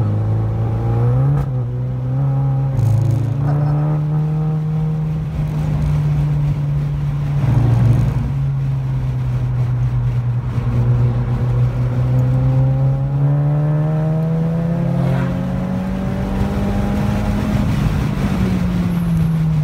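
Turbocharged 2.0-litre four-cylinder engine of a VW GTI Mk7, fitted with a Golf R turbo, running hard in third gear, heard from inside the cabin. The revs hold in the middle range, then climb steadily to near the limit and drop as the throttle is lifted near the end.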